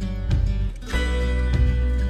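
Background music with a plucked string instrument, a new phrase starting about a second in.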